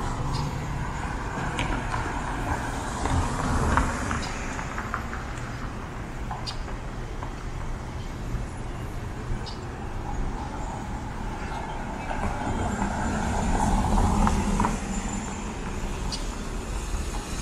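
Street traffic at a city intersection: cars passing with tyre and engine noise, swelling twice as vehicles drive close by, about three seconds in and again near the end.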